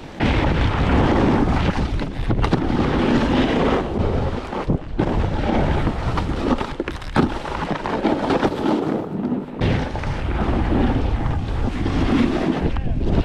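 Snowboard riding over hard, icy snow: a steady scraping rumble of the board mixed with wind buffeting the microphone, broken by a few sharp knocks.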